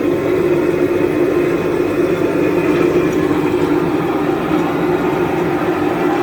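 Backhoe-mounted QST3000D chain saw and the Komatsu WB97-S backhoe's engine running steadily, a loud even mechanical drone with no breaks.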